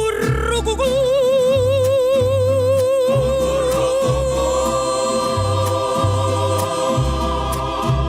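Mexican folk music playing: a voice holds one long note with a wide vibrato over a repeating bass line.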